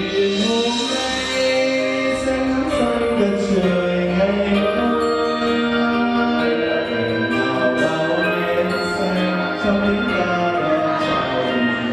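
A man singing into a handheld microphone over amplified backing music, his voice holding and gliding between long notes.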